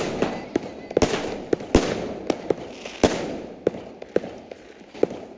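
Aerial fireworks bursting overhead: over a dozen sharp bangs, the loudest in the first three seconds with crackling trailing after them, growing fewer and fainter toward the end.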